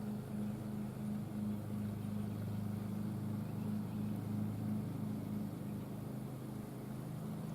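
An engine idling steadily: a low hum with a regular pulsing throb.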